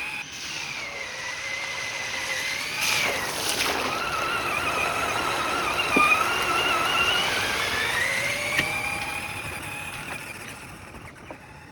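Traxxas Summit RC truck driving, its electric motor and gears whining in a high pitch that rises and falls with the throttle over a rushing of tyres, fading away near the end.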